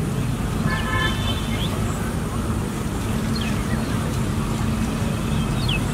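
Steady low outdoor rumble, with a short high call about a second in and a few faint high chirps later.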